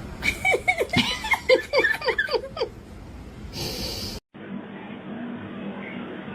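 A person laughing in a quick run of about eight short falling syllables, followed by a brief hiss and an abrupt cut.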